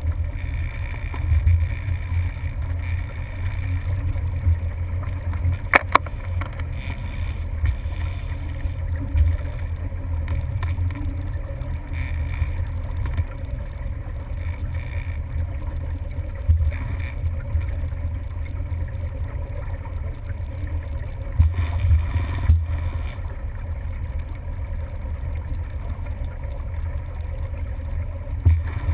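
Motorboat engine running steadily, a low rumble, with a sharp click about six seconds in.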